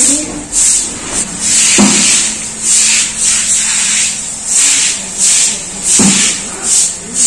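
Broom sweeping water across a wet floor: a steady rhythm of hissy, splashy swishes, about one or two strokes a second. Two sharp knocks come about two seconds in and again near six seconds.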